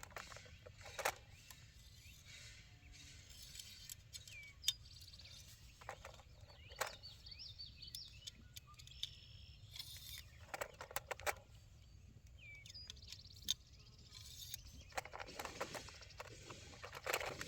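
Scattered small metallic clicks and rattles of cartridges being pressed into a magazine, spread irregularly, with faint birds chirping in between.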